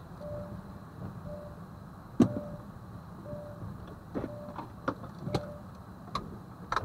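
Inside a car on a rainy night: a short electronic beep repeating about once a second, like a turn-signal indicator, over the car's steady low rumble. Scattered sharp clicks and knocks come through, the loudest about two seconds in.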